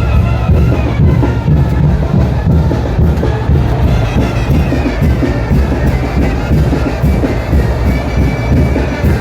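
Live Mexican brass banda playing a son de chinelo, brass and woodwinds over a steady drum beat.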